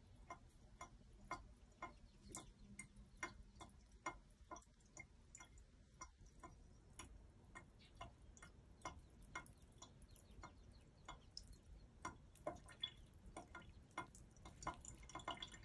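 Faint water drips from a tap falling into a sink basin, sharp little ticks a few times a second at an uneven pace.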